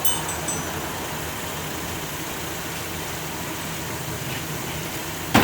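A motor vehicle engine idling steadily, with a sharp knock near the end.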